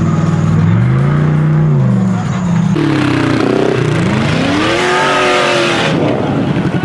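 Off-road race vehicle's engine revving, its pitch rising and falling. About three seconds in it gets rougher and noisier, with the revs climbing, and the roughness drops away about six seconds in.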